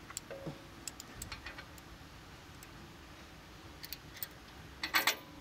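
Light clicks and taps of shock absorber hardware (stud, washer and bushing) against a steel shock mount as a Bilstein shock is fitted by hand, with a cluster of louder clicks near the end.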